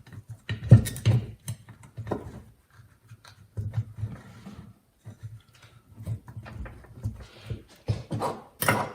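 Irregular knocks and clunks of metal gearbox parts being worked and tapped into the snowblower gear reduction unit's case, a few sharper knocks standing out near the start and end.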